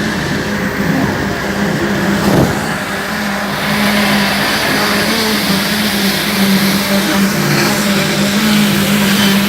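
Boat engine running steadily, a constant hum with a held pitch.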